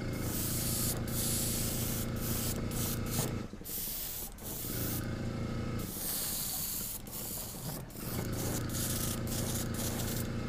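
Airbrush spraying paint in hissing bursts with short pauses between them. Under it an air compressor runs with a low hum that drops out briefly twice.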